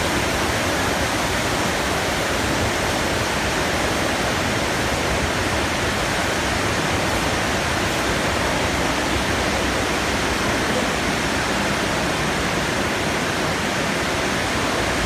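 A steady, even rush of water.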